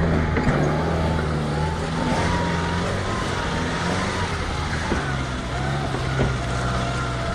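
An off-road vehicle's engine running steadily at low revs.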